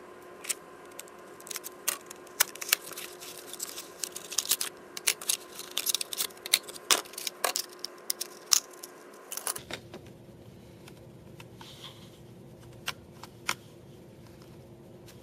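Rapid, irregular small clicks and light rattling for about nine and a half seconds, then a few single clicks, over a faint steady hum.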